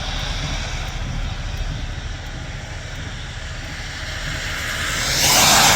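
Wind rumbling on the microphone over steady rain and road noise in a heavy storm, with a loud hissing rush that swells about five seconds in.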